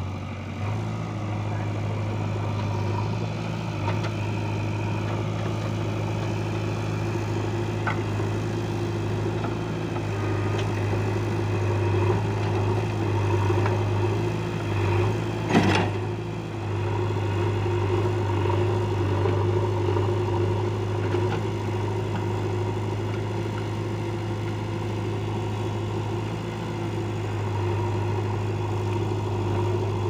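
JCB 3DX backhoe loader's diesel engine running steadily with a low, even hum while the backhoe arm digs into a dirt and gravel pile. One sharp knock stands out about halfway through.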